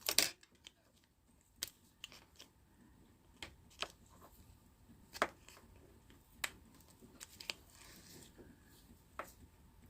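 Scattered small plastic clicks and taps from a car key fob being handled, its metal key working at the seam of the case to pry it open; the loudest click comes right at the start.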